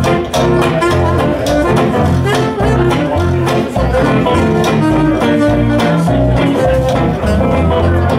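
Live swing band playing an instrumental passage: upright bass and acoustic rhythm guitar keep a steady beat under lap steel guitar, fiddle and saxophone.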